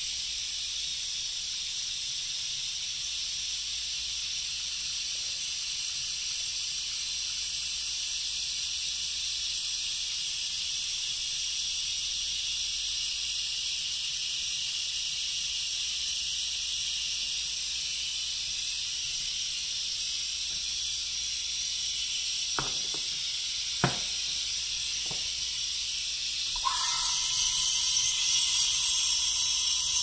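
A vintage La Pavoni lever espresso machine hisses steadily, with three sharp clicks as it is handled. Near the end its steam valve is opened and steam rushes out louder with a whistling tone, the steam wand being purged before milk is steamed.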